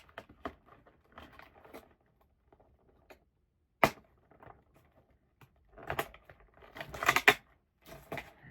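Small clicks, taps and rattles from handling a doll and its plastic packaging and accessories, with one sharp click about four seconds in and a quick cluster of clicks and rattles around seven seconds.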